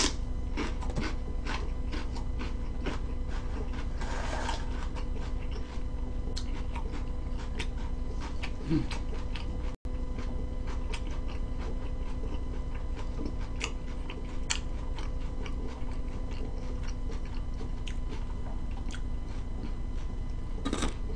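Close-miked biting and chewing of a raw celery stick: scattered crisp crunches and mouth clicks over a steady electrical hum. Near the end, a crisp fried hash brown is torn apart.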